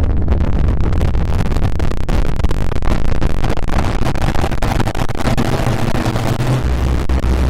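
Loud, distorted rumbling noise with a heavy deep bass and constant crackling, running without let-up.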